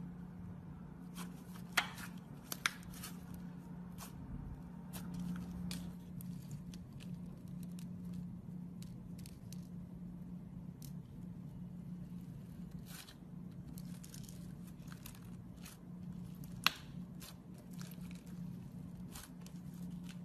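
Glitter slime being squished and stretched by hand, with many small sticky clicks and pops and a few sharper snaps. A steady low hum runs underneath.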